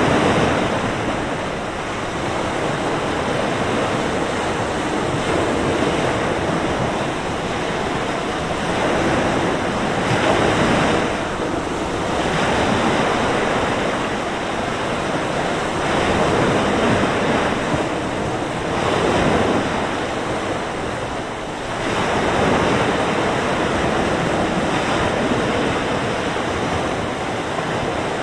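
Mediterranean surf breaking and washing onto the beach, rising and falling in surges every few seconds, with steady wind.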